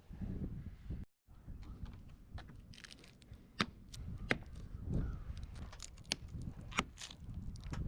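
Handling noise with several sharp plastic clicks and snaps, as of windshield pillar trim pieces being pried off or pressed into place.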